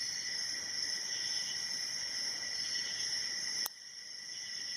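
A steady high-pitched, cricket-like whine over faint scraping of a hook pick in a pin-tumbler padlock's keyway, with one sharp click near the end.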